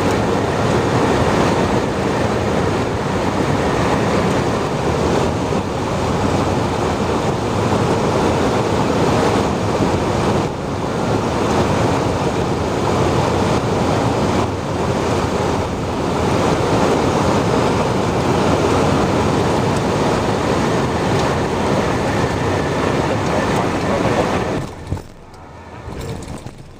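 Steady cockpit noise of a Cessna Citation Encore jet on final approach: air rushing past the airframe mixed with its twin turbofan engines. The noise falls away sharply about 25 seconds in, as the jet reaches the runway.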